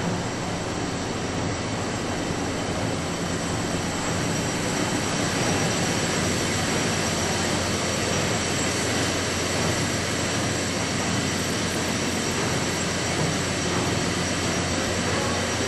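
Liberty ship's triple-expansion reciprocating steam engine running steadily under way: a dense mechanical din with thin, steady high tones over it.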